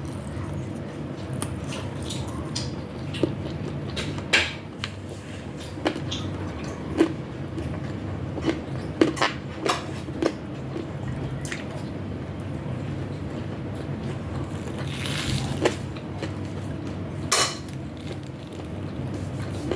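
Close-up eating sounds: cutlery clicking against a plate about a dozen times at irregular intervals, with chewing and two brief rustles in the second half, over a steady low hum.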